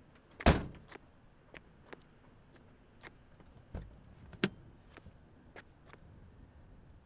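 A car's rear hatch slammed shut about half a second in, a loud thump. Scattered small clicks and steps follow, then a thump and a sharp latch click as the driver's door handle is pulled and the door opens.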